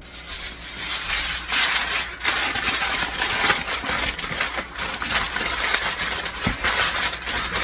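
Aluminium foil crinkling and crackling as it is torn off and pressed down over a baking pan, an irregular run of crisp rustles and crackles.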